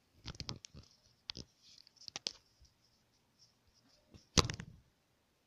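Handling noises at a desk: papers rustling and a pen and sheets being moved, giving a run of light taps and clicks, then one sharp knock about four seconds in.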